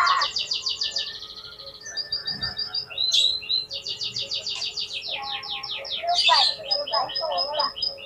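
Oriental magpie-robin (kacer) singing in full voice: a loud, rapid song of fast repeated whistled notes and trills, with a couple of harsher chattering notes. This is the kind of song used as a lure to provoke rival kacer into answering.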